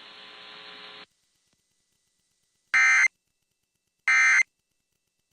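Emergency Alert System end-of-message data bursts: two short, identical, buzzy digital chirps about a second and a half apart, the coded tones that close an alert. Before them a faint hiss cuts off about a second in.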